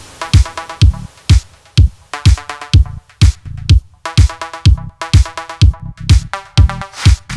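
Electronic dance music with a steady kick drum about two beats a second and synth chords.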